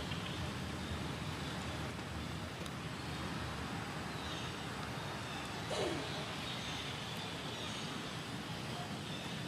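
Steady outdoor background noise with a low rumble, like distant road traffic, and a single brief falling sound about six seconds in.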